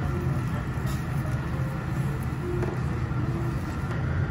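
Steady low rumble of background room noise, with no distinct event standing out.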